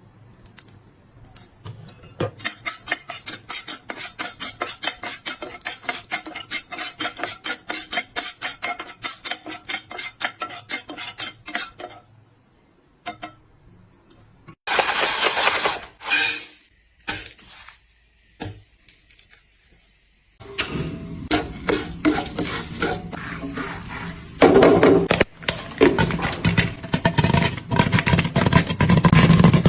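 Popcorn kernels popping rapidly in a pot, a dense run of sharp pops for about ten seconds. After a short pause come louder clattering and rustling sounds of kitchenware.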